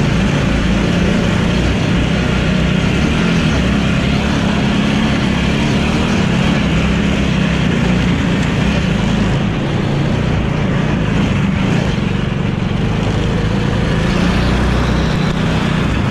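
Engine of a small open-top mini car running steadily as it drives along.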